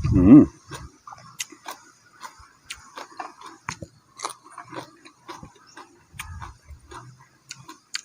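Close-up chewing and biting of crunchy food: many irregular crisp crunches and mouth clicks. A short vocal sound comes right at the start.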